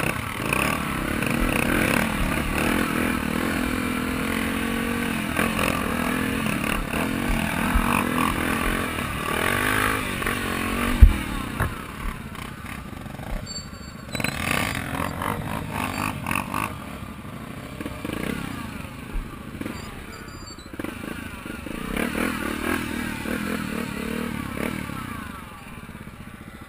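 Honda XR 250 Tornado's single-cylinder four-stroke engine running as the dirt bike is ridden over a rough trail, its revs rising and falling, with the bike clattering over bumps. A single sharp thump about eleven seconds in.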